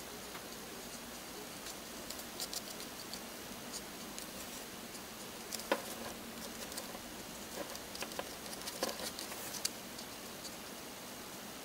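Black Faber-Castell India ink brush marker drawing on a paper collage page: faint, irregular scratches and small taps of the tip against the paper over a steady hiss, the sharpest tick a little before halfway.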